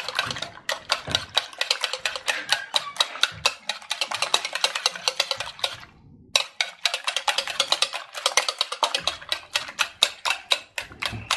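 Wire whisk beating eggs in a bowl: a rapid run of clicks as the wires strike and scrape the bowl, several a second, with a short break about six seconds in.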